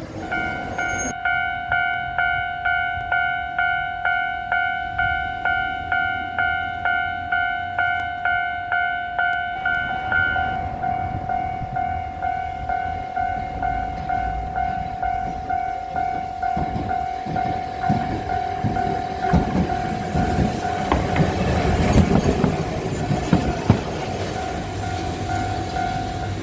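Japanese level-crossing warning bell ringing its electronic 'kan-kan' about twice a second. About two-thirds of the way through, a Kagoshima City tram comes through the crossing with rhythmic wheel clatter over the rail joints while the bell keeps ringing.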